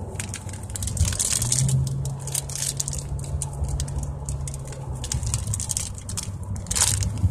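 Clear plastic bag crinkling in irregular bursts as an ice-cream-cone squishy toy inside it is squeezed and turned, over the low road rumble of a moving car's cabin, with a steady low hum for a few seconds in the middle.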